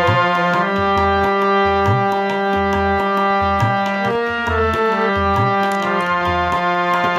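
Harmonium playing a melody of held reed notes that step from pitch to pitch, over a steady tabla beat with a low bass stroke about once a second.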